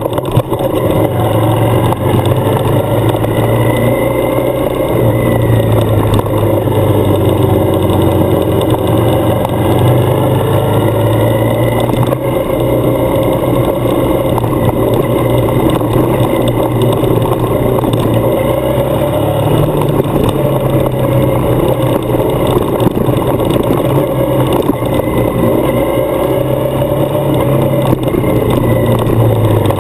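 Adventure motorcycle engine running under way, its pitch rising and falling a little with changes in speed, over steady wind and road noise.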